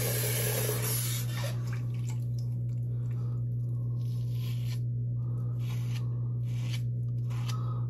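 Multi-blade cartridge razor, its blade about two years old, scraping through shaving cream and stubble on the cheek in short, irregular strokes, over a steady low hum. A hiss of running water dies away about a second in.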